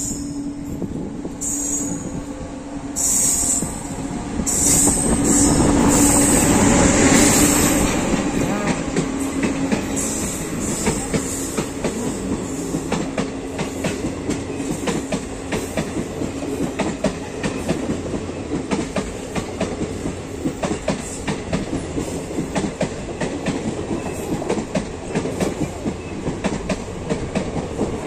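A WAG-9 electric locomotive passing close by with a steady hum, loudest about five to eight seconds in. It is followed by a long rake of passenger coaches rolling past, their wheels clicking steadily over the rail joints.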